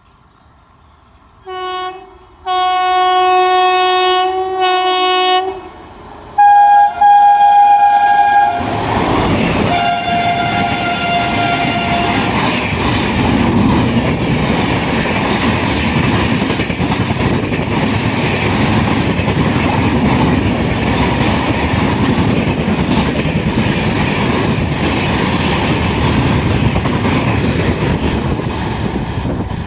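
Indian Railways train horn: a short blast, then a long blast of about three seconds, then a blast on a higher note. The train then runs past close by, its wheels clattering steadily over the rail joints.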